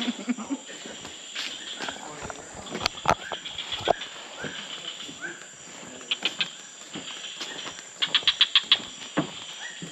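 Tropical rainforest ambience: a steady high insect drone, with short rising chirping calls and two runs of rapid clicking pulses, the louder run about eight seconds in.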